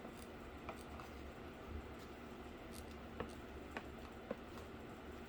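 Scattered faint light clicks and taps from hands handling small parts and cardboard, about half a dozen over a few seconds, over a low steady hum.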